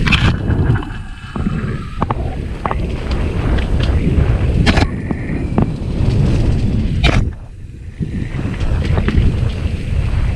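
Wind buffeting the microphone over a low rumble while riding an off-road trail, with a few sharp knocks: at the start, about halfway, and again a couple of seconds later.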